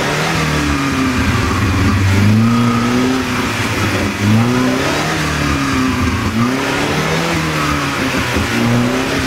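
Off-road 4x4's engine revving up and down over and over, the pitch rising and falling about every one to two seconds, as its wheels spin in deep mud and water. The vehicle is stuck and makes no headway.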